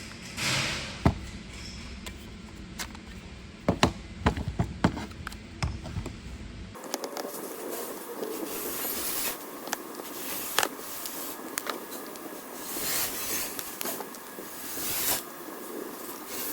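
Light clicks, taps and scrapes of small tool parts being handled, thickest about four seconds in. After an abrupt change a rushing hiss swells and fades several times.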